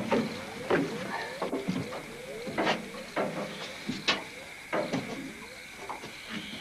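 Saltwater crocodile thrashing against a boat's side as it is hauled in on a catch pole: irregular splashes and hard knocks, the loudest about three quarters of a second, two and a half, and four seconds in. Behind them, frogs call in quick runs of short falling croaks.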